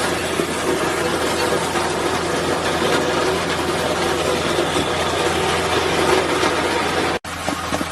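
Road roller engine running steadily.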